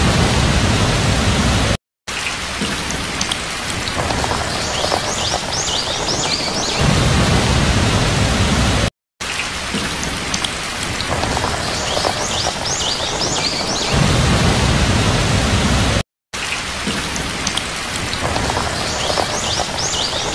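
Steady heavy rain with low rumbles of thunder. The same few seconds of sound loop about every seven seconds, each repeat marked by a quick run of high chirps and broken by a short cut-out to silence.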